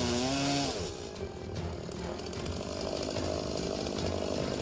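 Chainsaw running at a steady pitch, with background music. A brief wavering pitched sound comes in the first second.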